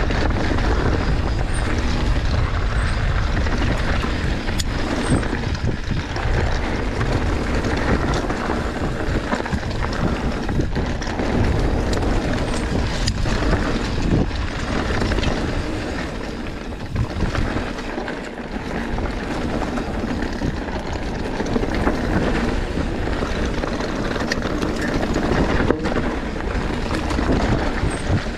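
Mountain bike riding down a dirt trail, heard from a camera mounted on the rider or bike: wind buffeting the microphone and tyres rolling over dirt and rocks, with frequent short knocks and rattles from the bike over rough ground.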